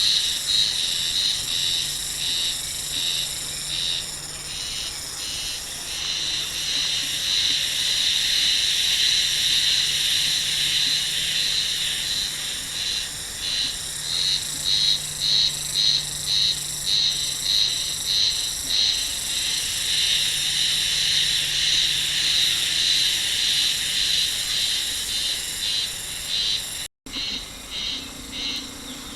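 Insects singing outdoors: a loud, steady high-pitched chorus that pulses in quick rhythmic waves, with a brief dropout near the end.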